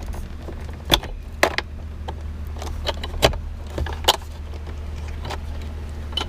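Sharp plastic clicks and rattles of wiring harness connectors being unclipped from the back of a 2011–2017 Jeep Wrangler instrument cluster, about half a dozen snaps spread irregularly over a steady low hum.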